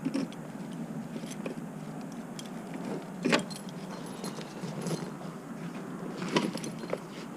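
Keys jangling and light clattering as the e-bike's battery is unlocked and taken off, with two sharper clacks about three seconds and six seconds in.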